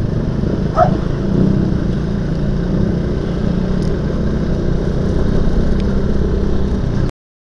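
Euro Motor Marvel 130i scooter running at a steady cruise with road noise, picked up by the bike's action camera. A brief squeak about a second in; the sound cuts off suddenly near the end as the recording stops.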